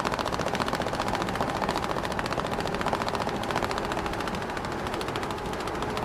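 Small motor of a homemade mini tractor model running with a fast, even rattle.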